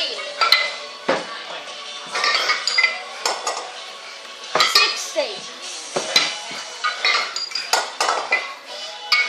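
Pair of 20 kg competition kettlebells clanking against each other and against the lifter's forearms as they are cleaned into the rack and jerked overhead in the long cycle. Repeated sharp metallic clinks, each with a brief ring.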